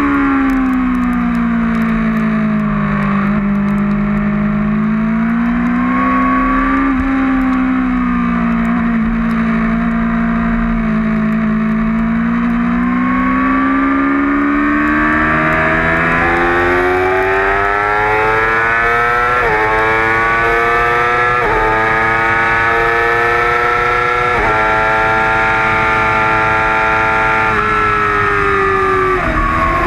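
2008 Yamaha R6's inline-four engine at racing speed. Revs fall at the start and stay low through a long bend, then climb steadily, with upshifts at three quick drops in pitch about two-thirds of the way in. Revs fall again right at the end as the rider slows.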